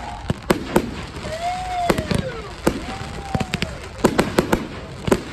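Fireworks going off: a rapid run of sharp bangs and crackling pops, with several whistles that glide up and then fall away in pitch.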